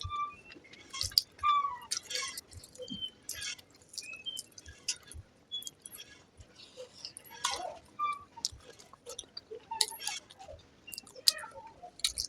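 Close-miked eating of fried rice with egg curry: irregular wet chewing and lip-smacking clicks, with a few light clinks.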